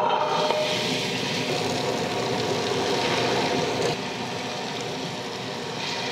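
Tabletop wet grinder running, its stone rollers turning in the steel drum and grinding soaked urad dal into batter as more dal is added. A steady grinding noise, a little quieter from about four seconds in.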